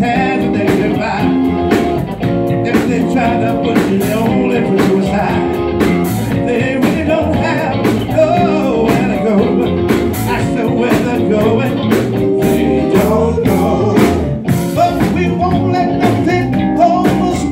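Live band playing amplified music on electric guitar, electric bass and drum kit, with a singer on the microphone.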